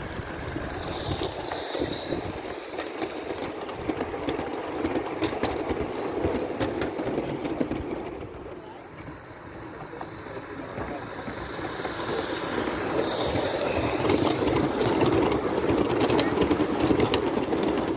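Live-steam model train of a Darjeeling D-Class Garratt locomotive and its coaches running on the track, with wheels clicking over the rail joints. It dips about halfway through and grows louder near the end as the coaches roll close by.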